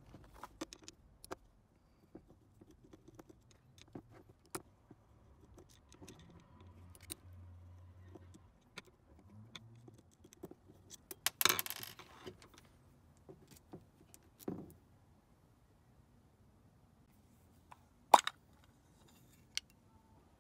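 Small clicks and rattles of a Phillips screwdriver and loose screws as the float bowl screws are taken out of a Honda Ruckus/Zoomer 50cc carburetor, with a denser rattle of about a second halfway through and one sharp click near the end.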